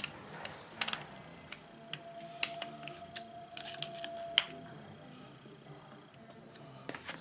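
A handful of sharp clicks and taps from hand tools and small engine parts being handled while the ignition coil is set against the flywheel, with a quick run of clicks near the end.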